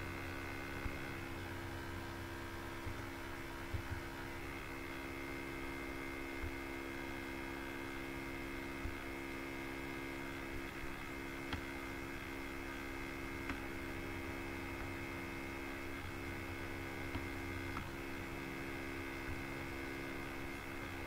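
Steady electrical mains hum in the recording, with a few faint clicks now and then.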